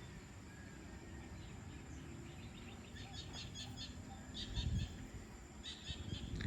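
Birds chirping in quick runs of short, high notes, starting about three seconds in, over a steady outdoor hiss. Two low, muffled thumps come through, the louder one a little past halfway.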